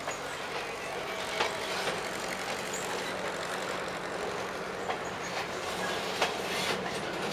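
Freight train cars, centerbeam flatcars and boxcars, rolling past at close range: a steady rumble of steel wheels on rail, broken by a few sharp clicks.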